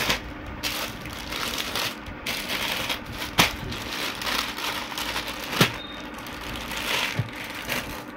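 Clear plastic packaging crinkling and rustling as packaged cotton suit sets are handled and moved about, with a couple of sharp taps.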